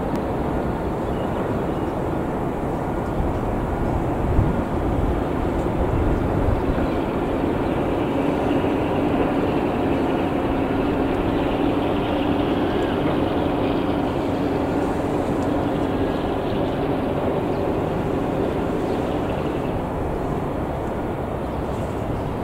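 A steady, distant engine drone over a low outdoor rumble, strengthening through the middle and easing off near the end.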